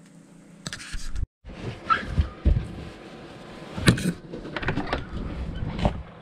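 A faint steady hum, then a run of irregular knocks and clunks from a camper door and someone moving out of the camper onto the snow, the loudest knock about four seconds in.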